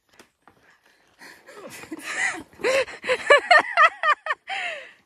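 A hiker's voice making short wordless sounds, exclamations or grunts of effort while scrambling over boulders, coming in a quick run during the second half.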